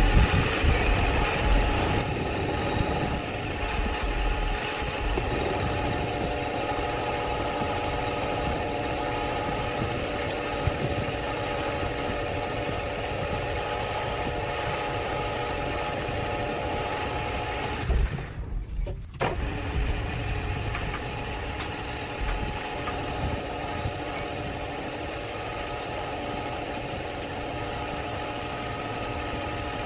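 Metal lathe running steadily, a constant machine hum with several steady tones over a low rumble. It breaks off for about a second roughly two-thirds of the way through, then carries on.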